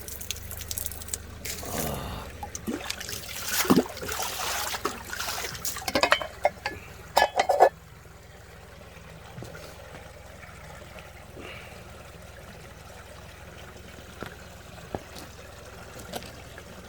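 Spring water splashing and pouring loudly in uneven bursts for the first eight seconds or so, then running on as a steady, quieter trickle.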